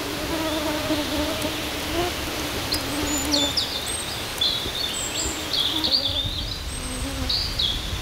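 Forest ambience: a flying insect buzzing close by for the first three or four seconds, its hum wavering in pitch, then a small songbird singing a string of short, high chirping phrases.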